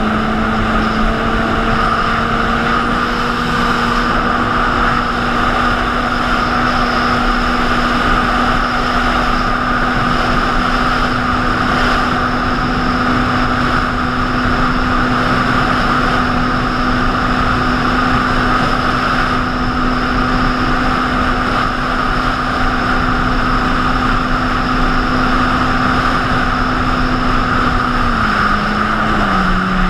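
Jet ski engine running steadily at cruising speed, heard from on board over a constant rush of wind and water. The engine's pitch rises slightly a couple of seconds in and drops near the end.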